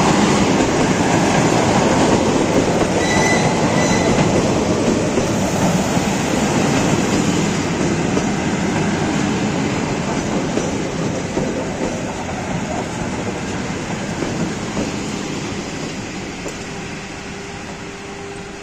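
ED2T electric commuter train (elektrichka) running past at close range, its wheels rumbling on the rails. The noise is loudest in the first few seconds and fades steadily as the train goes by.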